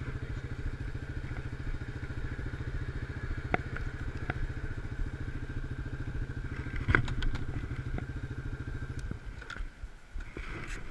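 ATV (quad) engine running as the quad is ridden, a steady low, rapid pulse, with a few sharp knocks and clatters along the way, the loudest about seven seconds in. The engine note drops away about nine seconds in.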